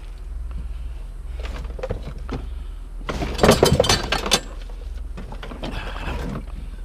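Clattering knocks of scrap being handled and dropped while unloading, in two bunches, the second and louder about three to four seconds in, over a steady low hum.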